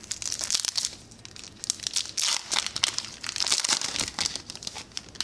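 The foil wrapper of a 2018 Topps Gallery baseball card pack being torn open and crinkled by hand, in two spells of crinkling: a short one at the start and a longer one through the middle.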